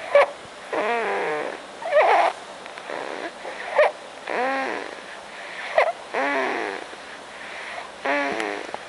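A man snoring loudly in pig-like snorts: a short sharp snort, then a longer drawn-out pitched snore, the cycle repeating about every two seconds.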